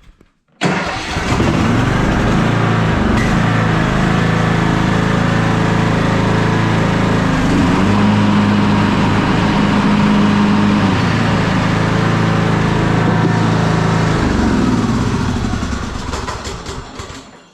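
Troy-Bilt riding lawn mower engine, on choke, catching about half a second in and running steadily. Its pitch rises briefly in the middle, and near the end it is shut off and runs down.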